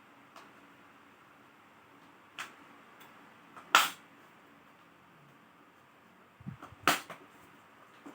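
Sharp clicks and taps from working on a laptop during disassembly. There are a few separate clicks, the loudest just before halfway, then a quick run of small knocks ending in another loud click near the end.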